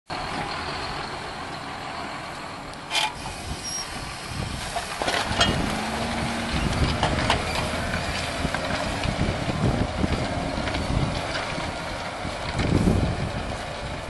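John Deere 6630 tractor's six-cylinder diesel engine running under load as it pulls a reversible plough through the soil. Gusts of wind buffet the microphone, and there is a sharp click about three seconds in.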